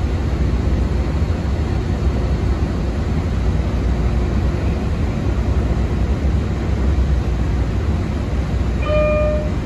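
Steady rumble of an MBTA Green Line light-rail car running on the track, heard from inside the car. Near the end a short electronic tone sounds once.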